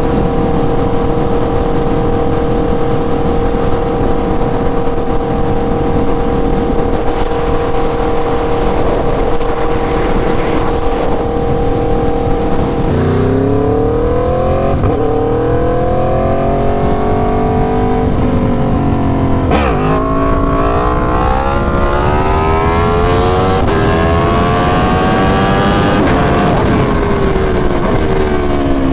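Aprilia Tuono V4 1100 Factory's V4 engine holding a steady pitch while cruising. About 13 seconds in it accelerates hard, the revs climbing and dropping sharply at a few quick gear changes, then the revs fall as it eases off near the end. A constant rush of wind noise runs underneath.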